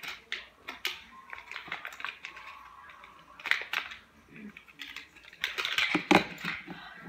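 Small objects being handled: irregular clicks, taps and rustles, busiest about halfway through and again near the end.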